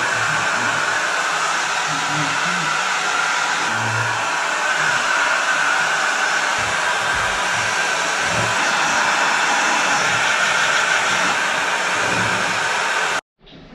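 Handheld hair dryer blowing steadily, a loud even rush of air that stops abruptly near the end.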